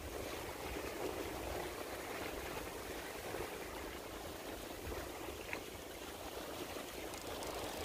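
Steady rushing outdoor background noise, with one brief faint high chirp about five and a half seconds in.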